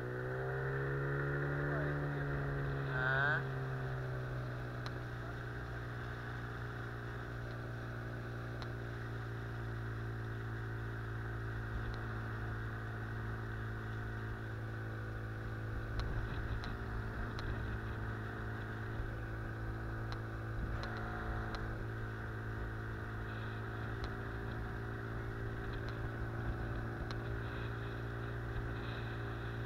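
Outboard motor pushing an inflatable boat upriver, running at a steady pitch after a brief rise and fall in engine speed in the first few seconds.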